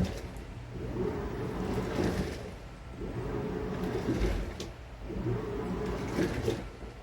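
Samsung 17 kg washing machine running a wash cycle: the drum churns the wash water in surges of about two seconds, with short pauses between them.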